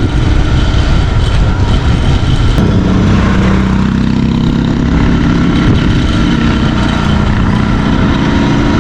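A vehicle engine running under heavy wind noise in a sandstorm. A steady engine drone rises out of the rumble about three seconds in.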